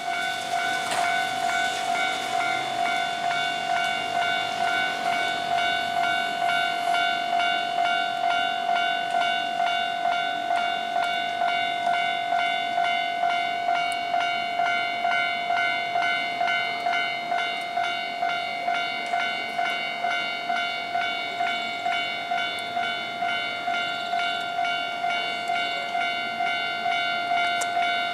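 Japanese railway level-crossing warning bell ringing, an electronic ding repeating about twice a second without a break. It is the signal that a train is approaching the crossing.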